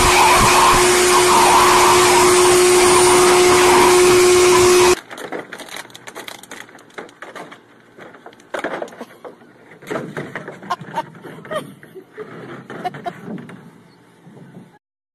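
A loud, steady whine of an electric motor appliance, such as a vacuum cleaner or blow dryer, with a held tone. About five seconds in it cuts off suddenly, leaving a much quieter stretch of scattered knocks and brief voice-like sounds.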